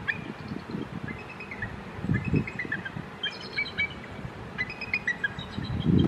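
Bald eagles calling: four or five bouts of thin, high chittering notes, each run stepping down in pitch. A low rumble runs underneath.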